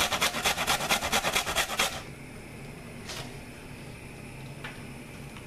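Horseradish root rubbed quickly up and down a stainless steel box grater, a fast, even run of scraping strokes about seven a second that stops about two seconds in, leaving only a low steady hiss.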